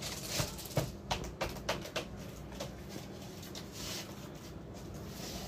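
A quick series of light taps and knocks, about seven in the first two and a half seconds, from a hand pressing freshly glued L-beading down onto the top edge of wall panelling.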